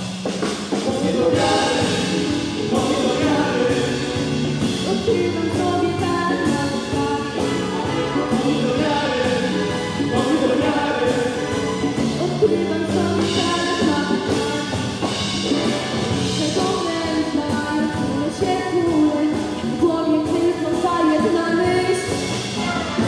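A woman singing a song into a microphone, accompanied by a live chamber orchestra with violins and cellos.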